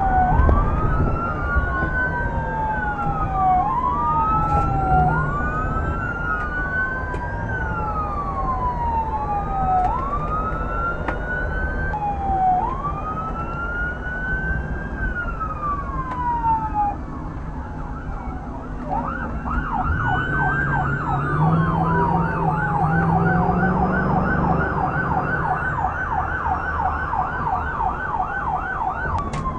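Police car siren sounding a slow rising-and-falling wail, then switching about two-thirds of the way through to a fast yelp. Fainter sirens from other cruisers sound alongside, over steady engine and road noise.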